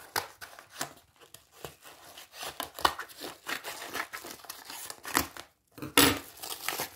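Scissors cutting open a plastic mailer bag, the plastic crinkling and rustling as it is handled, with a louder rustle about six seconds in.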